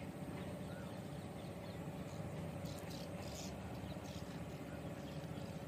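Quiet outdoor background: a steady low rumble with a faint steady hum, and a few faint high ticks in the middle.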